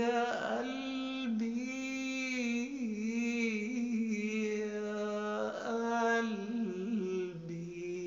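A man singing an Arabic song, drawing out a wordless melismatic phrase in long held notes with a slight waver, the line falling to a lower note near the end.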